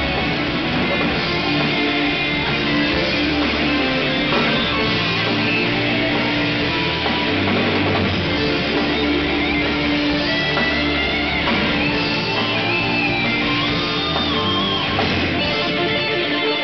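Rock band playing live: electric guitar, bass guitar and drum kit. In the second half a high lead-guitar line slides and holds notes above the band.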